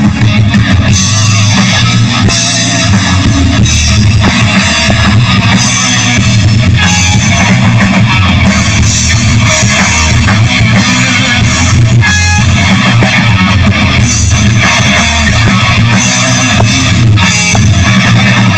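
Live rock band playing loud, with guitars and drums to the fore.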